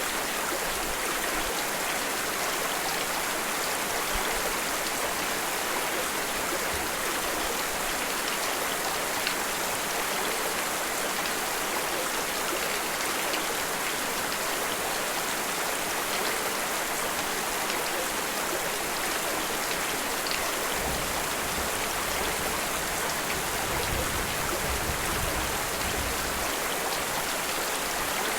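Steady, dense rainfall hissing evenly, with a low rumble coming up under it in the last several seconds.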